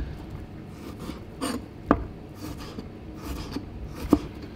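Kitchen knife cutting pieces of fish on a cutting board: two sharp knocks of the blade meeting the board, about two seconds apart, with fainter scraping of the blade between.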